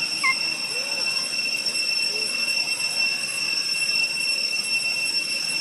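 A steady high-pitched whine with fainter, higher overtones above it, and a couple of short faint chirps just after the start.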